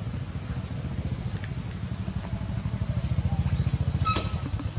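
A small engine running with a rapid, even low pulse, growing louder about three seconds in. A short high squeak cuts in about four seconds in.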